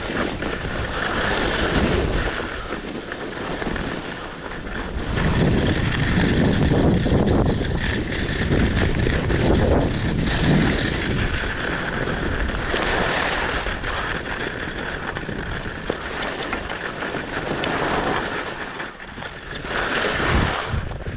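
Wind buffeting the microphone of a moving skier, over the hiss and scrape of skis sliding on packed snow; the rumble swells and eases several times.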